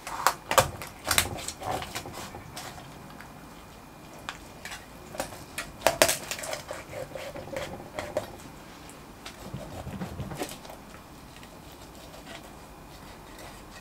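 Knife cutting into a roasted half suckling pig on a bamboo chopping board: a scattering of sharp clicks and scrapes as the blade goes through skin that is still a bit leathery rather than crisp. Most come in the first couple of seconds and again around six seconds in.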